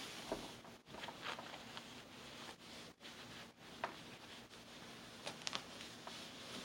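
Faint rustling and brushing of woven wrap fabric as a baby carrier's tie is twisted and handled, with a few short soft scrapes.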